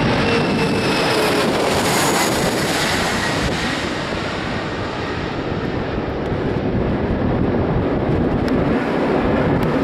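A regional jet with two rear-mounted engines passing low overhead on landing approach. Its engine whine falls in pitch as it goes over, giving way to a steady jet rumble that dips midway and swells again toward the end.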